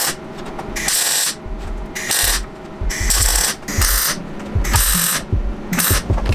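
Clarke MIG 150 gas-shielded MIG welder stitch-welding a steel patch plate onto a car's front core support. The arc crackles in short bursts, each under half a second and about one a second, with pauses between the tacks.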